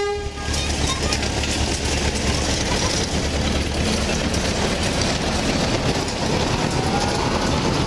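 Miniature park train with open passenger carriages rolling past on its track: a steady running noise of wheels and carriages with fine rapid clicking.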